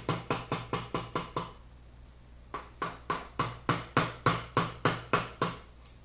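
Light, quick mallet taps on a wood chisel chopping across the grain of a board, about five taps a second. There is a short pause about a second and a half in, then the tapping resumes.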